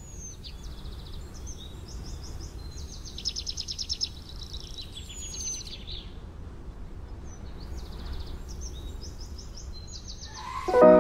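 Birds chirping, with rapid trills and short downward-sliding whistles, over a steady low outdoor rumble. Music comes in near the end.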